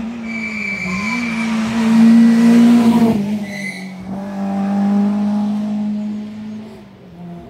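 Hillclimb race car going past on the course, its engine held at steady high revs. It is loudest about two to three seconds in, dips briefly in pitch just after three seconds, then runs steady again and fades away near the end. Short high tyre squeals come in early and again at about three and a half seconds.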